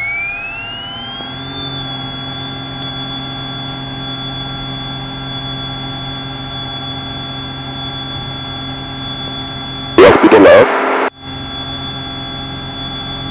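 Diamond DA40's engine and propeller at takeoff power, heard from inside the cockpit: a steady drone under a high whine. The whine rises in pitch over the first second or two as power comes up, then holds steady through the takeoff roll. About ten seconds in, a loud burst of about a second cuts across it.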